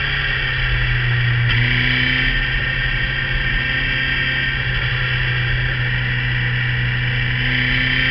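Motorcycle running along a winding road, heard through the bike-mounted camera's microphone: a steady low engine drone with a hiss of wind and road noise above it, shifting slightly about one and a half seconds in.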